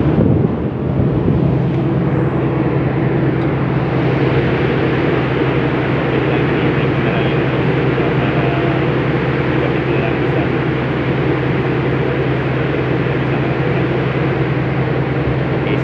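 Steady drone of a ship's machinery under way: a constant low hum with several steady tones, under an even rushing noise of wind and sea on an open deck.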